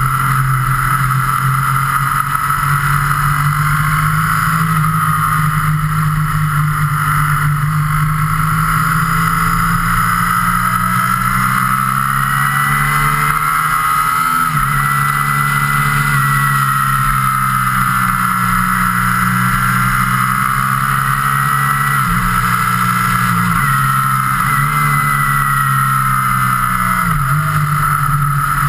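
Road vehicle's engine running steadily at cruising speed under loud wind rush, its pitch stepping several times in the second half as gears change.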